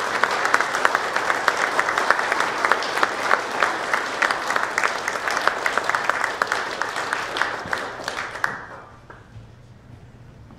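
Audience applauding, many people clapping at once; the applause dies away about eight seconds in, leaving only a faint low room hum.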